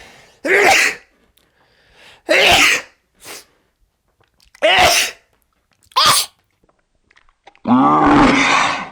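A man sneezing repeatedly in a fit: five loud sneezes about one to two seconds apart, the last one drawn out to about a second.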